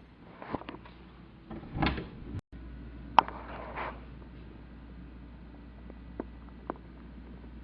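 A few scattered knocks and clicks over a low steady hum, the sharpest a single click about three seconds in.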